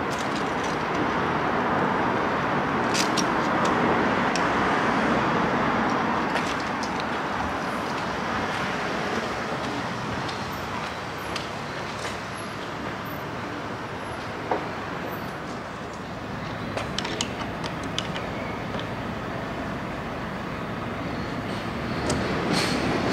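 Road traffic going by, a steady rushing noise that swells, fades a little midway and rises again near the end, with a few light clicks scattered through it.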